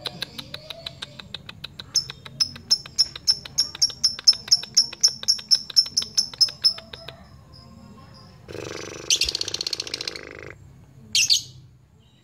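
Fischer's lovebird giving its challenge chatter (ngekek): a long run of rapid high chirps, growing louder and steadying at about five notes a second for some seven seconds. Then comes a harsh rasping burst of about two seconds and a single short squawk near the end.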